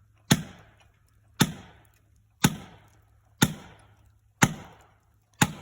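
Felling wedges being driven into the back cut of a large oak with heavy hammer blows, six sharp strikes about a second apart, each with a short ring. The tree is not yet giving way.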